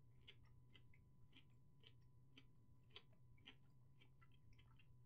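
Near silence with faint, irregular clicks, about two or three a second, from a computer mouse being scrolled, over a faint low hum.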